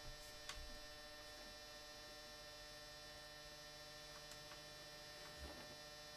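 Near silence: a steady electrical mains hum, with a couple of faint soft knocks, one about half a second in and one near the end.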